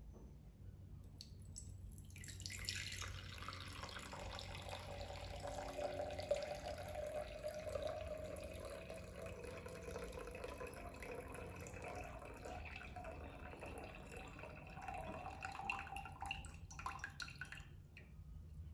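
Water pouring in a steady stream from one glass pitcher into another, its gurgling tone creeping slightly higher as the receiving pitcher fills. The pour begins about two seconds in and stops shortly before the end, followed by a few drips.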